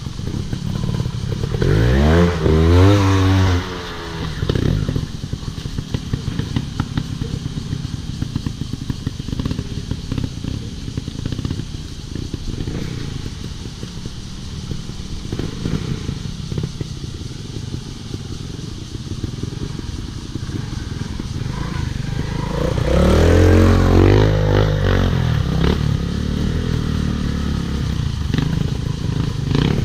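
Off-road motorcycle engine running, revved up twice: once about two seconds in and again near the end, with fast ticking engine pulses in between.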